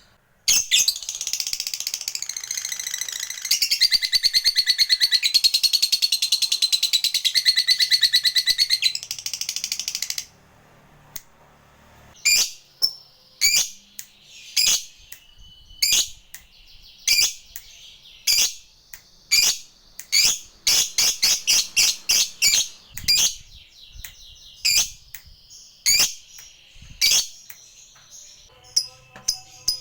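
Lovebird calling: a long, fast chattering trill, the 'ngekek', stepping up and down in pitch for about ten seconds. After a brief pause it gives single sharp chirps about a second apart, which later quicken into faster runs.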